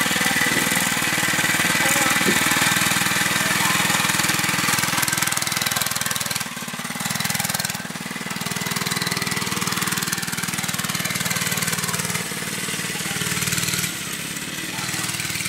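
Small single-cylinder gasoline engine of a mini bike running, its level dipping and picking up again several times as the bike is ridden off across the grass.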